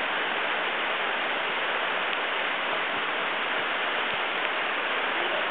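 Steady rush of a waterfall, about 40 ft high, crashing into the pool below, an even hiss with no breaks.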